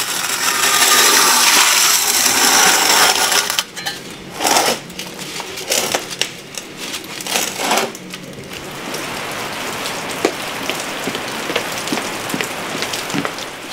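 A metal baking pan scraping across the hearth floor of a wood-fired masonry oven as it is pulled out, followed by a few shorter scrapes and knocks. After that comes a steadier hiss with scattered light ticks.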